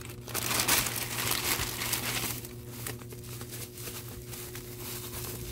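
Plastic courier pouch and bubble wrap crinkling and rustling as a wrapped box is pulled out by hand, loudest in the first two seconds, then softer.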